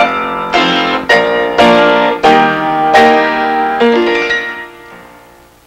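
Piano music: a run of chords struck about every half to two-thirds of a second. The last chord, about four seconds in, rings out and fades away.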